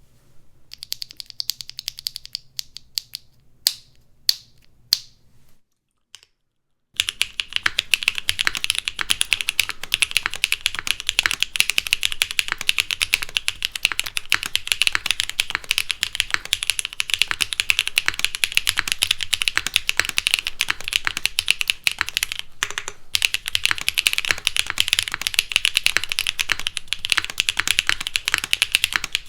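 Typing on a Mode Sixtyfive mechanical keyboard with lubed Kailh BCP linear switches: a full, deeper-clacky bottom-out on each keystroke. A few scattered key clicks and a short silence come first, then continuous fast typing starts about seven seconds in, with a brief pause about three quarters of the way through.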